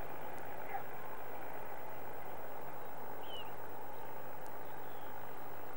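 Steady outdoor background noise with a couple of faint, short bird chirps, one about a second in and another around the middle.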